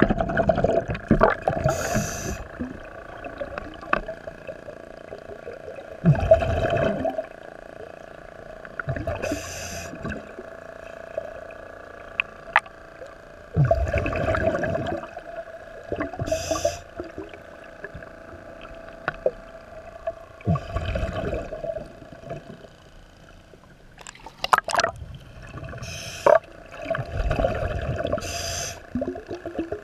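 A diver's breathing regulator heard underwater, breathing slowly. Each breath is a short hiss of inhaled air followed by a longer rush of exhaled bubbles, a cycle about every seven seconds, over a steady hum.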